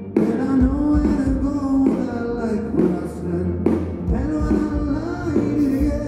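Live rock band playing through the stage PA: electric guitars, drum kit and bass under a sung melody.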